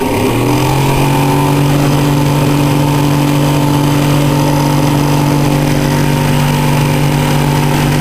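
Small 12-volt, 12-watt DC fan switching on, rising in pitch over the first half second as it spins up, then running with a steady hum.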